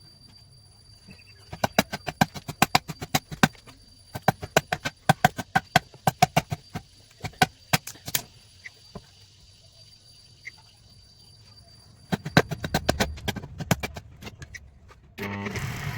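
Rapid runs of sharp knocks, about five a second, in two bursts, over a faint steady high whine; a short loud noisy burst comes near the end.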